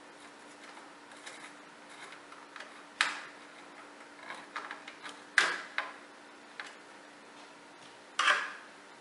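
Small clicks and knocks of screws and a screwdriver working against a computer case, with three sharper knocks about three, five and a half and eight seconds in, over a faint steady hum.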